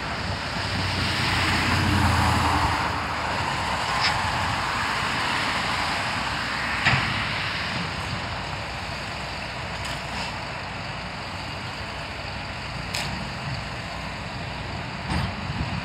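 John Deere 130G excavator and CAT 953D track loader working at a distance, a steady diesel engine and machinery noise with a louder swell about two seconds in. A few sharp knocks come every few seconds, the loudest about seven seconds in.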